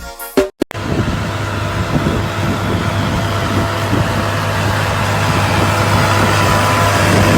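A vehicle engine running steadily with a low hum, growing a little louder. A bit of music cuts off abruptly in the first second.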